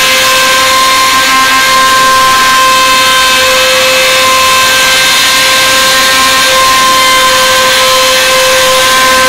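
Spindle of a CNC wood-carving router running with a loud, steady whine over a hiss.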